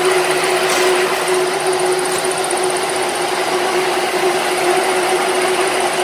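Mini round silage baler-wrapper running: a steady, even mechanical drone with a constant hum.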